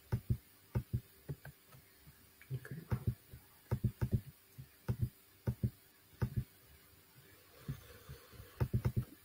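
Soft, irregular low knocks or taps, often in quick clusters of two to four, heard over a video-call microphone.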